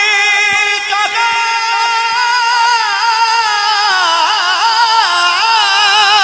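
A male reciter singing a long held note of an Urdu kalam. The pitch holds steady for about three seconds, then breaks into wavering melismatic ornaments.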